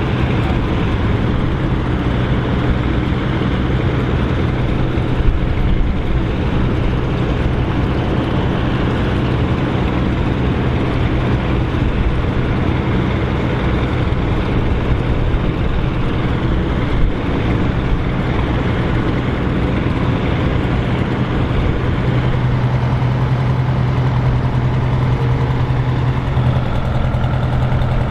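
Vintage tractor engines running steadily. One engine's low hum grows stronger about three-quarters of the way through.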